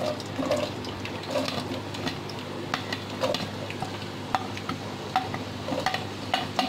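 Chopped onions dropping into hot oil in a black karahi (wok) and sizzling, with scattered sharp clicks and taps as the pieces are pushed off a plate into the pan.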